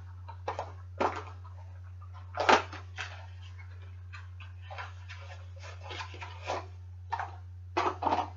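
Scattered short rustles and knocks of a bicycle inner tube being handled and taken out of its cardboard box, the loudest about two and a half seconds in, over a steady low hum.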